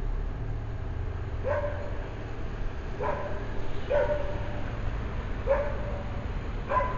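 Small white dog barking, five single barks spaced about a second to a second and a half apart, over a low steady rumble.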